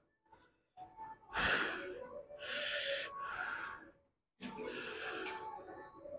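A man breathing hard through his mouth, four forceful breaths about a second apart, as he braces to start a set of lat pulldowns.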